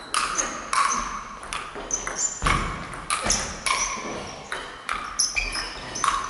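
Table tennis ball clicking off the rackets and the table in a fast rally, about two to three sharp hits a second.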